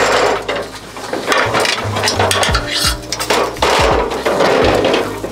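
Aluminum 24-foot extension ladder clanking and scraping as it is rolled and pushed into place against a wall. Repeated metal knocks come from the beams and rungs.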